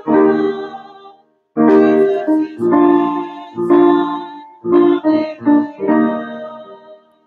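Choral introit: a choir singing sustained phrases with piano accompaniment, played back through a loudspeaker. The last phrase fades out near the end.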